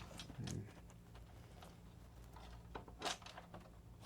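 Faint clicks and taps of PS5 internal parts and casing being handled and set in place, over a low steady hum.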